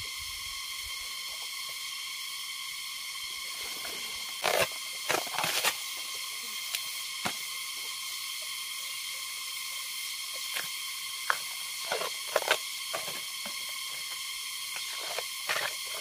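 Husk sheaths being torn and stripped by hand from a fresh bamboo shoot: short ripping and rustling sounds in scattered clusters, loudest about four to six seconds in and again around twelve seconds. Under them runs a steady high hiss.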